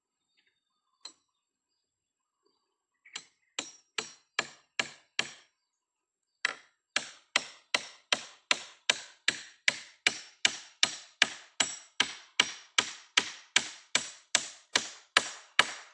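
Hammer blows driving a nail into a wooden post: a single knock, then about six strikes, a short pause, and a long steady run at about two and a half blows a second.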